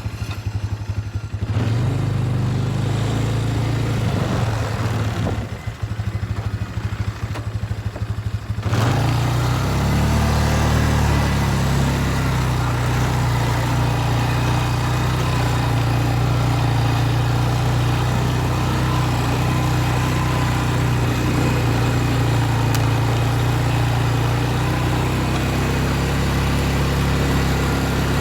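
Engine of a farm vehicle running steadily. It grows louder and fuller about nine seconds in, then holds steady as the vehicle drives on.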